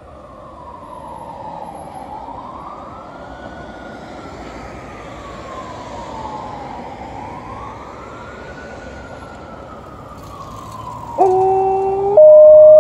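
An emergency vehicle's siren wails slowly up and down, about once every three and a half seconds. About eleven seconds in, an Alaskan Malamute starts howling along with it. The long, steady howl is by far the loudest sound.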